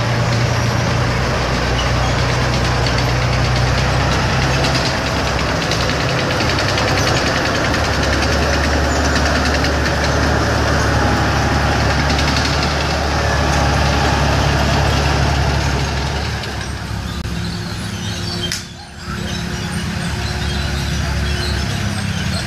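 A tank's engine running loud as the tracked vehicle drives slowly past, the engine note shifting a few seconds in. The sound eases off after about sixteen seconds as the tank moves on.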